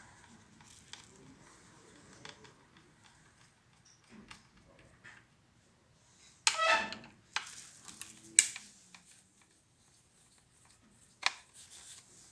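Light clicks and taps of a microwave oven's parts and screws being handled as its control board comes out, with sharp clicks about eight seconds in and again near the end. About six and a half seconds in, a dog gives one short bark.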